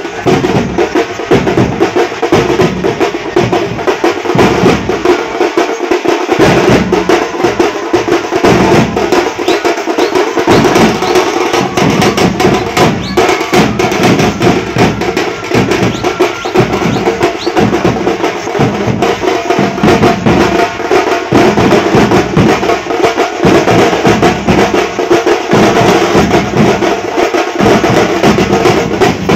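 A street drum band playing a fast, unbroken rhythm on strapped side drums and larger bass drums beaten with sticks, with dense rolls running throughout.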